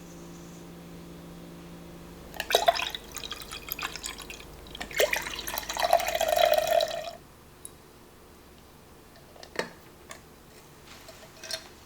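A cordless electric citrus juicer's small motor hums steadily and stops about two and a half seconds in. Liquid then drips and splashes for several seconds with sharp clinks, and a couple of single clicks follow near the end.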